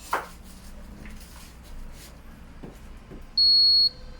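Refrigerator's door-open alarm giving one high electronic beep about half a second long near the end, the warning that the door has been left open. Before it come a brief squeak just after the start and a couple of faint knocks.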